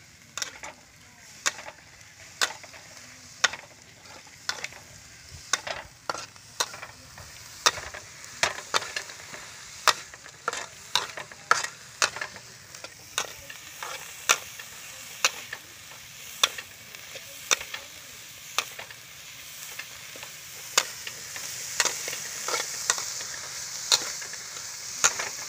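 Metal spatula scraping and clacking against a steel wok about once a second, stir-frying small shrimp, over a steady sizzling hiss that grows louder near the end.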